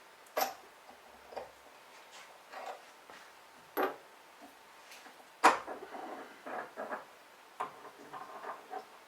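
Workshop handling noises: three sharp knocks, about half a second, near four seconds and about five and a half seconds in, then lighter clicks and clatter, as of a part and tools being picked up and set down.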